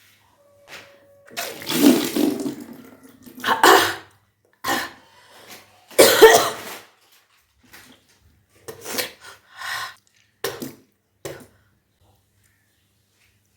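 A person retching and vomiting up water in a series of heaves and coughs, with water splashing, during kunjal kriya stomach cleansing. The loudest heave comes about six seconds in, with shorter ones after it.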